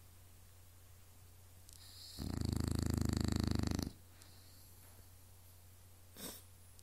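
A sleeping pet snoring: one long, rattling snore about two seconds in that lasts nearly two seconds, then a brief snuffle near the end.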